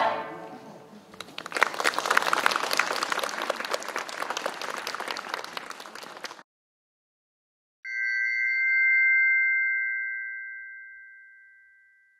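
A burst of applause for about five seconds that cuts off suddenly. After a short silence, a single bright chime in two tones rings out and fades away slowly.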